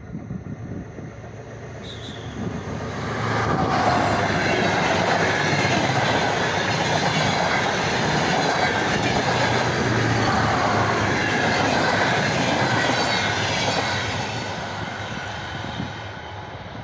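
Diesel passenger train moving along the track close by: a rumble and rail noise that swells about three seconds in, stays loud with thin high tones from the wheels and rails above it, then eases off near the end.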